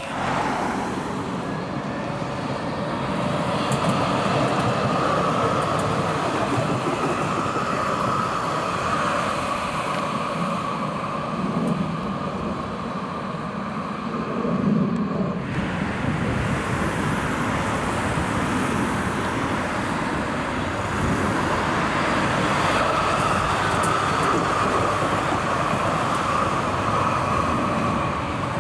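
Articulated city trams passing along a street amid car traffic: a steady rolling of wheels on rail and motor hum that swells and fades, in two takes with a sudden change in the sound about halfway through.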